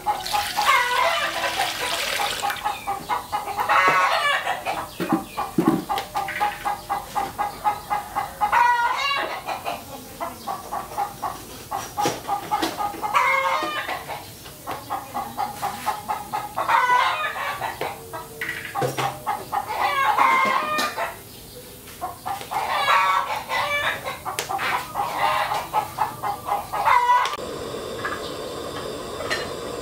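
Chickens clucking in long runs of rapid calls, with a rooster crowing now and then. Near the end this cuts to a steady hiss of water heating in a steel wok.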